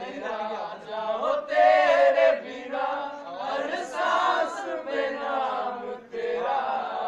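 A group of men singing together without instruments, with long held notes, loudest about two seconds in.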